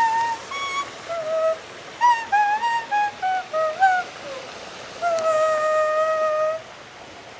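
A leaf blown as a reed instrument, playing a melody with a clear, flute-like tone: a few separate notes, then a run of notes stepping down in pitch, then one long held note that stops shortly before the end.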